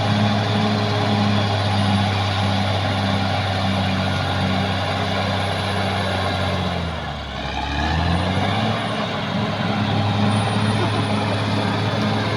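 Caterpillar D6R XL bulldozer's diesel engine running steadily. Its pitch sags briefly about seven seconds in, then climbs back.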